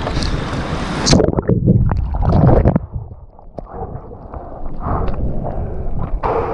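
Whitewater from a broken wave washing over a surfboard's nose: a hissing rush of spray, then about a second in the sound turns muffled, with heavy thuds and gurgling as water covers the board-mounted microphone. The open hiss of spray comes back near the end.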